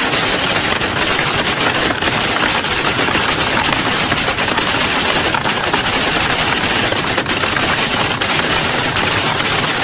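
Many computer keyboards being typed on at once, a dense, unbroken clatter of keystrokes with no pauses, as in a typing-test hall.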